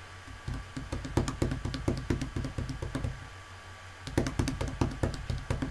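A rapid run of light taps or clicks, about six a second, stops near the middle and starts again about a second later.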